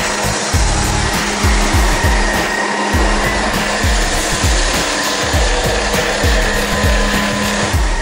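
Electronic background music with a fast, steady kick-drum beat over a dense, hissing wash of sound.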